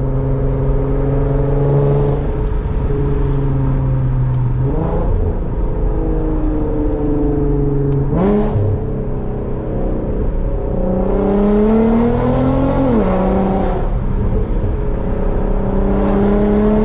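Infiniti Q50's V6 with a loud exhaust, driving at part throttle. The engine note climbs twice under acceleration, with a rasp over it, and drops back as the throttle lifts or the gear changes.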